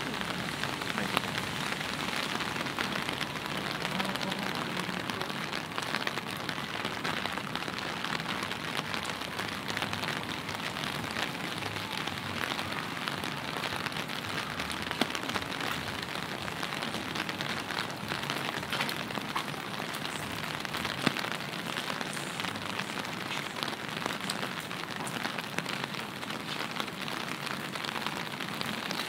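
Steady rain falling, with many individual drops ticking close by and a few louder taps.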